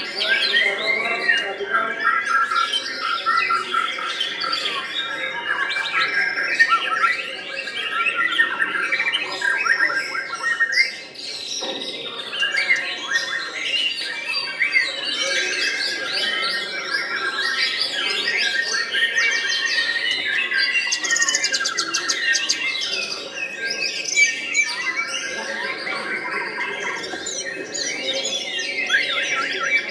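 White-rumped shama (murai batu) singing a long, varied song of rapid whistles, trills and harsher notes, almost without a break.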